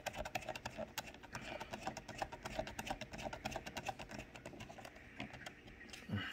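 Hand screwdriver driving a small screw into the plastic back cover of a Mercury SC1000 gauge: a faint, steady run of rapid small clicks from the driver and screw turning in the plastic.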